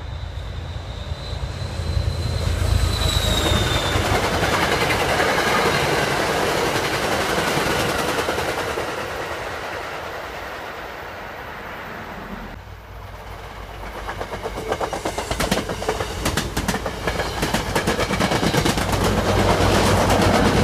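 MBTA commuter rail train passing at speed. A rumble swells early, eases off in the middle, then quick wheel clicks over the rail joints build and grow louder as the coaches go by near the end.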